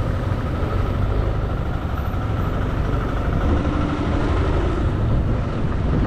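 Steady engine and road noise from a motor vehicle on the move, running evenly.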